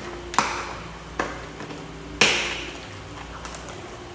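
Skincare product packaging being handled and opened: a few sharp taps and clicks about a second apart, the loudest about two seconds in with a short rustle after it.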